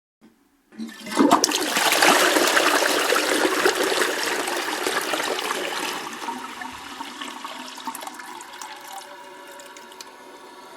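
A toilet flushing: a brief click, then a loud rush of water starting just under a second in, which fades after about six seconds to a quieter steady hiss.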